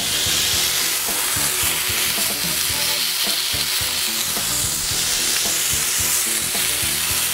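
Nopal cactus paddles and slices of panela cheese sizzling steadily in an oiled griddle pan on a gas hob.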